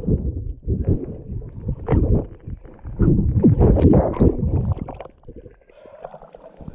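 Lake water sloshing and splashing close to the microphone, loud and uneven, dying down near the end.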